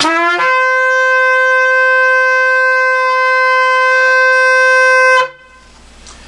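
A 42-inch shofar with a newly re-cut mouthpiece blown in one long blast: the note slides up at the start, then holds a steady, bright pitch for about five seconds before stopping abruptly.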